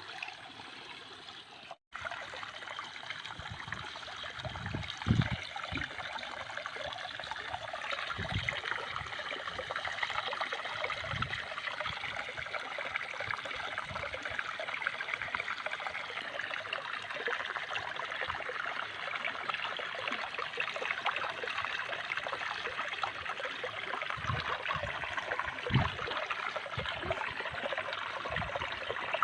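Water trickling and splashing steadily, with a few low thuds, loudest about five seconds in and again near the end. The sound breaks off briefly about two seconds in.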